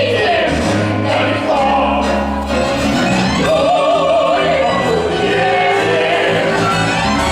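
Musical-theatre number: several voices singing together over orchestral accompaniment, with a single voice holding a note with vibrato a little past the middle.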